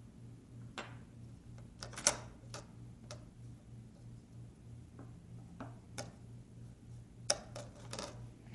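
Light, irregular clicks and taps from handling adhesive strips and small parts on a tablet's frame during a screen repair, the sharpest about two seconds in and near the end. A faint steady electrical hum runs underneath.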